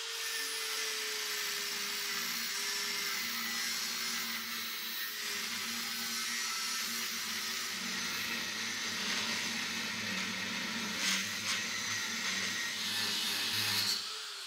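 Electric angle grinder with an abrasive disc grinding down a threaded steel bolt held in a vise: a steady, continuous grinding noise. The motor's whine sinks slightly in pitch over the first few seconds as the disc bears on the metal.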